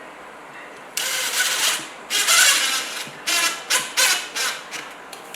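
A run of short, uneven mechanical rattling bursts, starting about a second in; the loudest comes around two seconds in, followed by several quicker ones.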